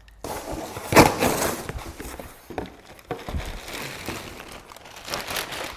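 Packaging being torn open and crinkled while a new car part is unwrapped: a run of crackling and rustling, loudest about a second in.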